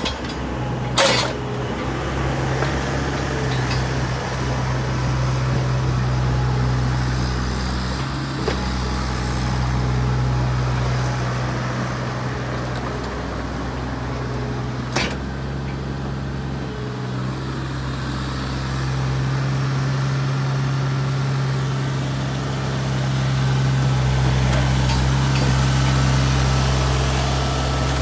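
Bobcat E32 mini excavator's diesel engine running while the machine works, its level easing and swelling as the hydraulics take load. There is a sharp knock about a second in and another about halfway through.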